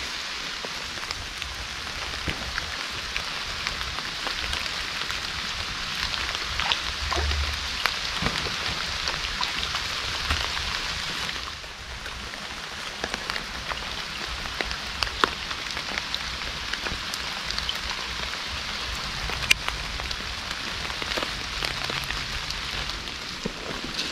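Steady rain falling on forest leaves and a stream's surface, with many separate drops ticking close by. It is briefly softer about halfway through.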